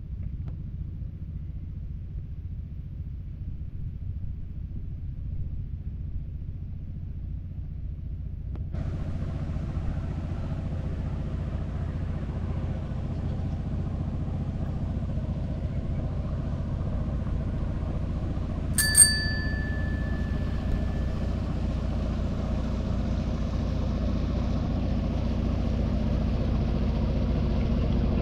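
Steady low rumble of a motor vehicle, growing slowly louder and fuller about a third of the way in. About two-thirds through, a small bell rings once, clear and bright, fading over about a second.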